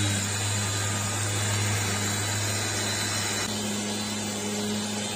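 Random orbital sander with a dust-extraction hose running steadily while it sands dried primer on a car's trunk lid with a 400-grit disc on an interface pad: a steady motor hum under an even sanding hiss, slightly quieter in the second half.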